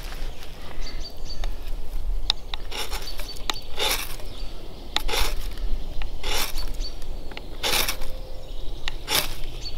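Ferrocerium rod struck with the back of a knife blade, sharp scraping strokes throwing sparks to light feather sticks. A few light scrapes come first, then five strong strokes a little over a second apart.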